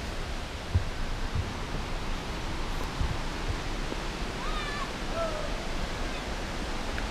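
Steady rushing of a fast, swollen creek, heard as an even wash of noise. A few low bumps of handling noise come in the first three seconds, and a short high call sounds about halfway through.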